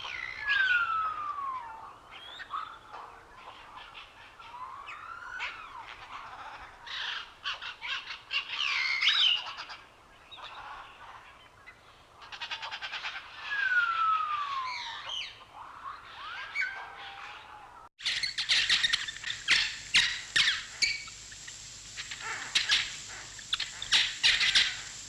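Wild birds calling and chirping, with clear whistled notes that slide downward, heard twice. About 18 s in the sound cuts abruptly to a busier chorus of quick, sharp chirps over a steady high-pitched hiss.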